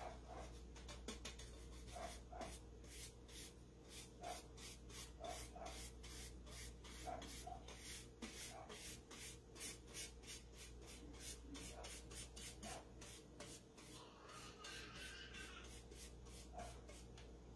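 Faint scratchy strokes of a stiff-bristled paintbrush being worked back and forth, spreading paint across a flat wooden pumpkin cutout, a few strokes a second.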